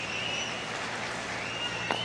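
Ballpark crowd noise, a steady murmur, with one short sharp pop near the end as the pitch smacks into the catcher's mitt on a swing and miss.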